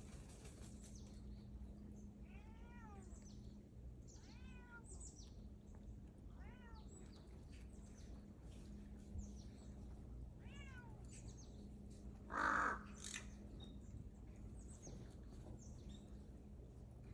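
A cat meowing four times, short arched mews a couple of seconds apart. About twelve seconds in comes one loud, harsh bird call, the loudest sound, with faint high bird chirps in between.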